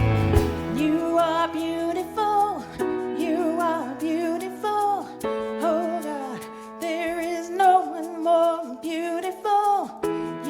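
Gentle worship music: plucked string chords under a melody line that slides and wavers between notes.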